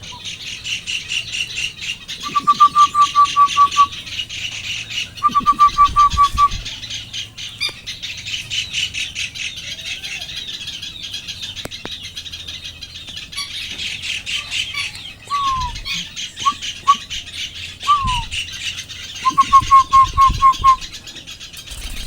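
A bird calling in three runs of short, even notes at about six a second, with a few single down-slurred notes in between, over a steady high chirring.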